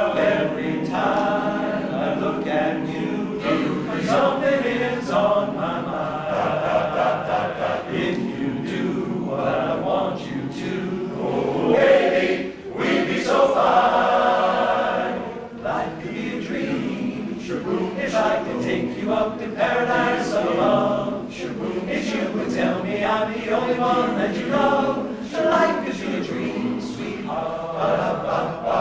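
Men's barbershop chorus singing a cappella in close harmony, voices only and no instruments.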